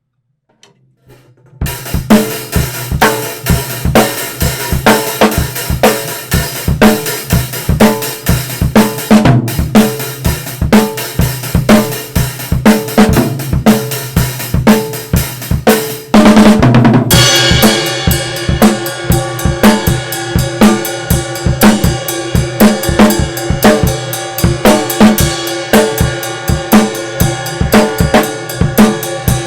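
Acoustic drum kit played in a steady groove of kick drum, snare, hi-hat and cymbals, captured raw through a two-microphone setup. It comes in about a second and a half in; around the middle a quick run of strokes leads into a louder section with more cymbal.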